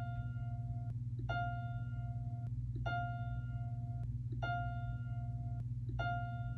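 Music: the same single plucked or keyboard-like note, repeating about every one and a half seconds and ringing for about a second each time, over a steady low hum.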